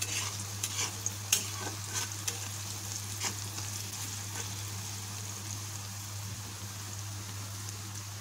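Sliced onions sizzling in hot oil in a black wok, stirred with a metal spoon that scrapes and clicks against the pan for about the first four seconds, then a steady sizzle. A low steady hum runs underneath.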